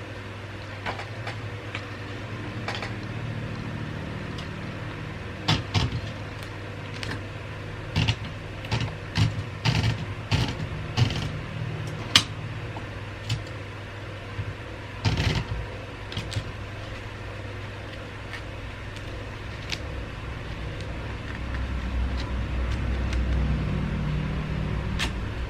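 Irregular sharp clicks and knocks from a Royal 202 manual typewriter, scattered and bunched mostly in the middle, over a steady low hum that grows louder near the end.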